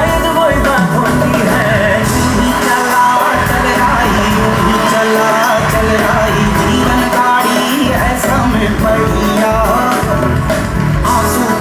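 A Hindi pop song with a singing voice over a strong bass line, played back through a Gigabass Vibe XT three-way floor-standing speaker with a horn-loaded tweeter and dual 8-inch bass drivers as a sound test.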